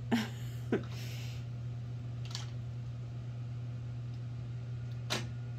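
A few soft clicks and taps, the strongest near the end, as a dog noses at a plastic treat-dispenser unit, over a steady low hum.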